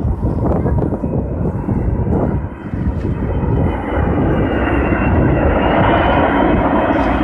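Airbus A380's four jet engines rumbling loudly as the airliner passes low overhead on its landing approach. A high engine whine comes in about halfway through and climbs slowly in pitch.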